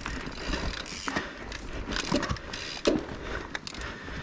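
Mountain bike rolling over a rough forest trail: tyre noise on dirt with irregular knocks and rattles from the bike as it hits roots and bumps.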